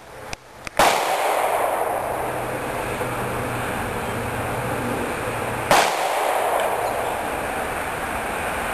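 Two shotgun shots about five seconds apart, each a sharp report followed by lingering noise.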